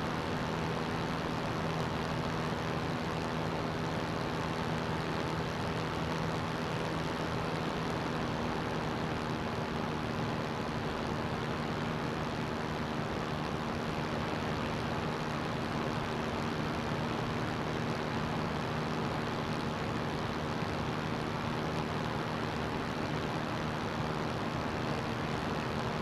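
CGS Hawk ultralight's engine and propeller running at steady, unchanging power, with a constant rush of air noise over it.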